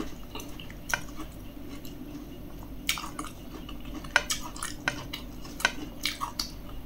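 Metal spoon scraping and tapping on a ceramic plate as a dry chili-salt-and-sugar dip is stirred, giving a scatter of light clicks.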